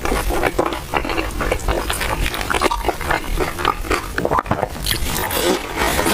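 Close-miked chewing of crispy oil-skin buns: a steady, dense run of mouth clicks, smacks and crunches.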